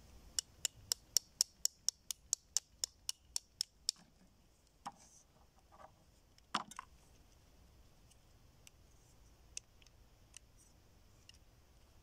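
Small plastic hammer from a fossil-dig kit tapping on plastic skeleton pieces: a quick, regular run of about fifteen light clicks, about four a second, stopping after some three and a half seconds. After it come a few scattered clicks of plastic bone pieces being handled, one sharper click near the middle.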